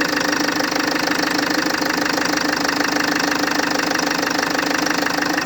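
FL2 engine idling steadily with a fast, continuous knocking in its running.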